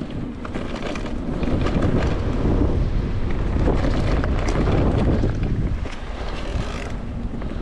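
Wind buffeting the microphone and tyre rumble as an electric mountain bike is ridden along a dirt trail, with scattered clicks and rattles from the bike.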